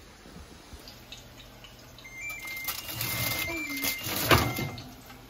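A foil-lined baking tray being handled on a metal oven rack. From about two seconds in there are a couple of seconds of scraping and rattling, ending in a sharp clunk, over a low steady hum.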